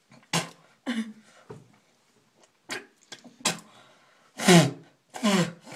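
A person reacting to a mouthful of salt: several short, sharp breathy noises, then two loud groans near the end.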